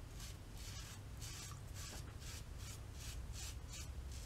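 A 3D-printed AC-Matic safety razor with an AC blade scrapes through lathered stubble in short, quick strokes, about three a second. This is a first pass with the grain.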